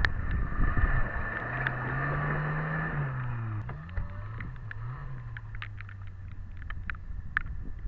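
Suzuki Samurai 4x4 engine working on a rocky climb. At first it is a rough, noisy rumble. Then the engine note rises and falls under the throttle, with two quick blips about four and five seconds in, and settles to a low steady note, with scattered sharp clicks in the second half.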